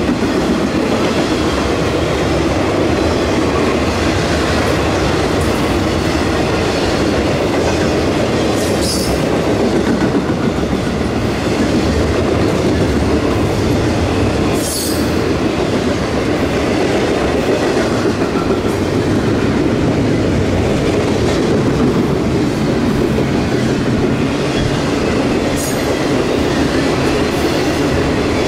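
Norfolk Southern intermodal freight train rolling past close by: a loud, steady rumble of steel wheels on rail, with three brief high-pitched wheel squeals, about 9, 15 and 26 seconds in.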